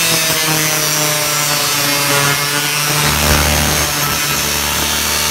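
Angle grinder cutting through the sheet-steel flange of an old car quarter panel: a steady motor whine over a loud grinding hiss, the pitch sagging slightly as the wheel bites. A deeper rumble joins about three seconds in.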